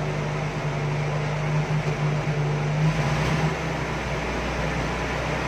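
Willys CJ-3B's four-cylinder petrol engine idling steadily soon after a cold start. There is a puttering from the exhaust that the owner puts down to a leak in the silencer. The hum shifts lower about three seconds in.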